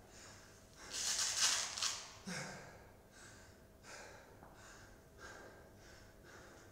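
An athlete panting hard from the exertion of heavy barbell cleans. A long, loud breath comes about a second in, then a run of quicker, fainter breaths.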